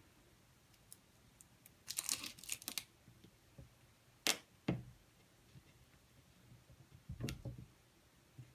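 Adhesive stencil being peeled off a glass jar: faint short peeling and crinkling rasps about two seconds in, then a few sharp ticks against the glass.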